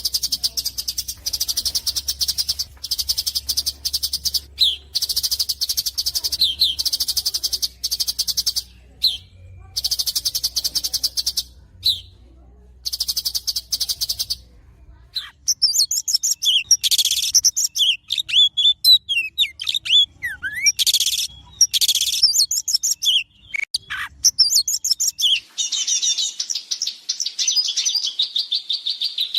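Songbirds singing: fast, high, buzzing trills in repeated bursts for about the first fifteen seconds, then a mix of varied whistled chirps and sweeping notes, and another long trill near the end.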